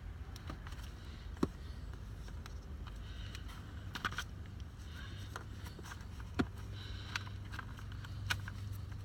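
Scattered light clicks and taps of hands working on a steering column's wiring and plastic parts, two sharper knocks about a second and a half in and past the middle, over a steady low hum.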